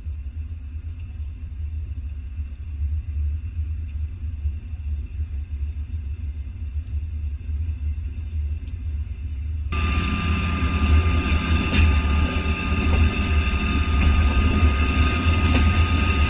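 Low, gusty rumble of wind buffeting the microphone. About ten seconds in, the sound changes suddenly, adding a brighter hiss and a steady high tone.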